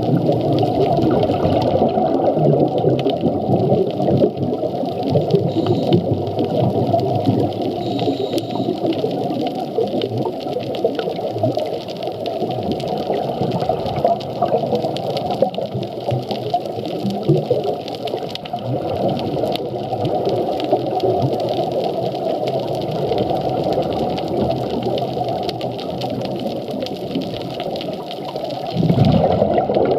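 Underwater ambience on a scuba dive: a steady rushing hiss of water and bubbles, with humpback whale calls, low moans and higher squeals, faintly heard beneath it.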